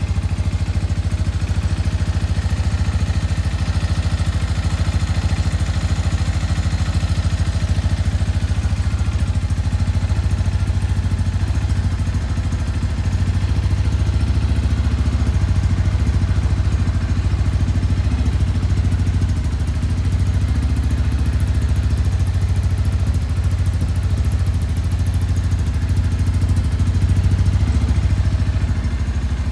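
Shelby Renz 200 sport motorcycle's engine idling steadily, its low exhaust note holding an even pitch with only slight swells in loudness.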